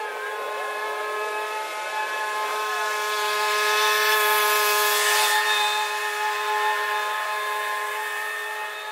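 John Deere X320 lawn tractor running steadily while mowing, a constant whine of evenly pitched tones. A rush of hiss swells up and fades away about midway through.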